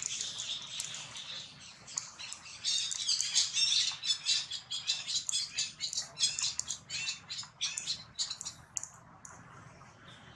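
Shrill, high-pitched animal squeals: one drawn-out cry at the start, then a fast run of short, sharp cries that thin out near the end.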